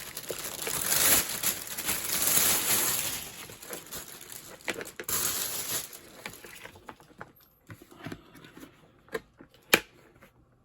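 Packaging crinkling and rustling in two long stretches over the first six seconds as the folding mini washing machine is unwrapped, then scattered light handling clicks and one sharp click near the end.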